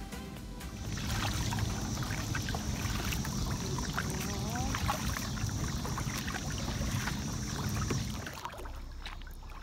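A kayak being paddled on calm water: paddle strokes splashing and dripping, with many small drips and a low rumble, starting about a second in and dropping away shortly before the end.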